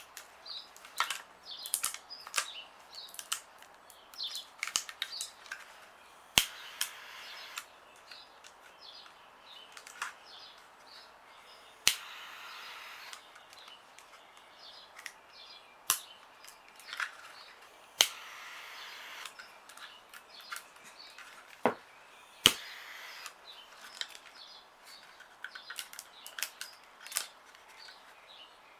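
A lighter being struck again and again, each sharp click sometimes followed by a second or so of flame hiss, as it heats tint film onto a brake light lens. Birds chirp in the background.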